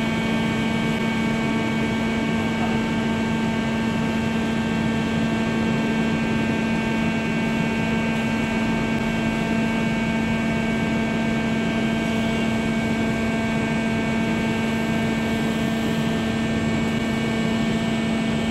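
Steady machine hum from a CNC metal spinning machine running, with one strong low tone and several fainter higher tones that hold level throughout.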